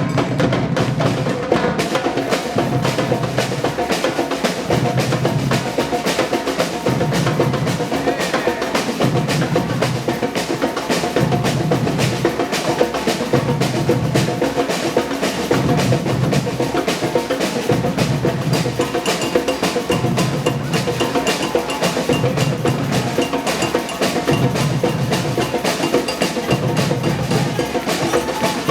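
Marching drum band playing: rapid snare drum strokes and rolls over a regular deep bass drum beat that comes about every second and a half.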